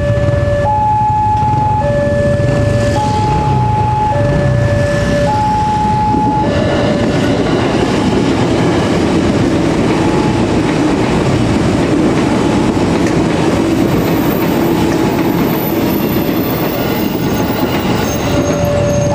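Railway level-crossing alarm, the new Wantech crossing unit, sounding a two-tone electronic alarm that alternates a low and a high tone about once a second. About six seconds in, a KRL electric commuter train runs through the crossing close by, and its steady rumble of wheels on the rails drowns the alarm. The alarm is heard plainly again near the end, as the train clears.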